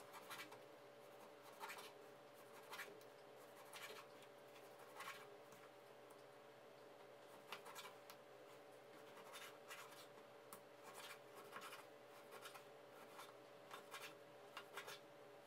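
Faint slicing of a kitchen knife through raw pork belly, the blade knocking softly on the wooden cutting board roughly once a second, with scraping between strokes.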